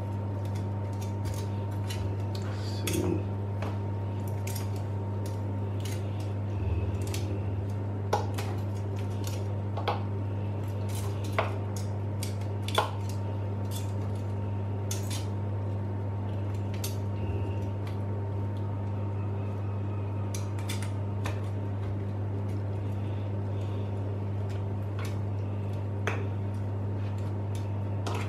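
Metal tongs and a fork clicking and scraping against a metal roasting tray as chicken pieces are turned over, with a few louder clinks in the middle. A steady low hum runs underneath.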